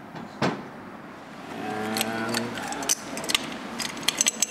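Small metal parts of a Silver Cloud III power steering pump clinking and tapping as they are handled on a workbench, in a quick run of sharp clicks over the last second and a half. A single click comes about half a second in, and a brief steady hum about two seconds in.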